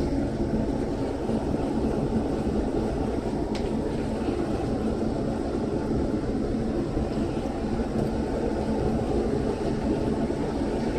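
Propane melting furnace running with its blower fan forcing air in: a steady roar of burner flame and air.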